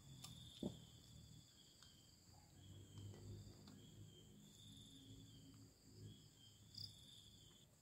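Near silence: faint insects chirping on and off, with a couple of soft knocks.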